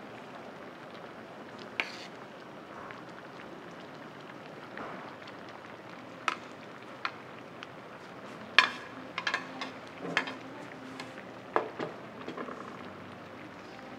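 Eating utensils clinking sharply against a pot and dishes, a few scattered strikes and then a busier cluster in the second half, over a steady low hiss.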